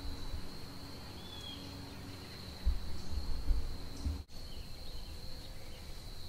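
Steady high-pitched trill of crickets or katydids in the woods, with a few faint bird chirps. A low rumble on the microphone swells for about a second near the middle, and the sound drops out briefly a little after four seconds in.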